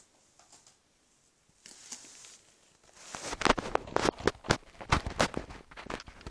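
Brown paper bag crackling and rustling as a kitten scrambles about inside it. It is faint at first, then from about three seconds in becomes a loud, rapid, irregular run of crinkles and scrapes.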